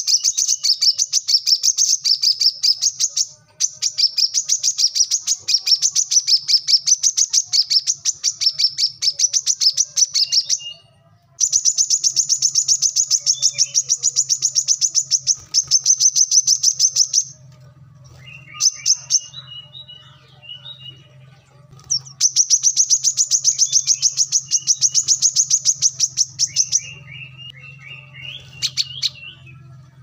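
Male brown-throated sunbird singing: long, very fast, high-pitched trills of rapidly repeated notes, each bout lasting several seconds. The bouts are broken twice by shorter, lower chattering notes, once past the middle and again near the end.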